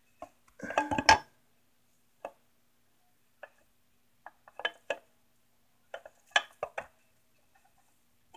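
Camshaft clinking and knocking against the aluminium cylinder head's journals as it is turned by hand to drop into its seat: a dense flurry of metal clicks about a second in, then scattered small groups of clicks.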